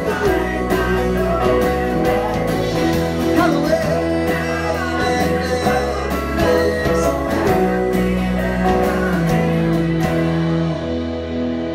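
Live rock band playing: electric and acoustic guitars, electric bass, keyboard and drum kit with steady cymbal hits. About ten seconds in the cymbals drop away and a held chord rings on.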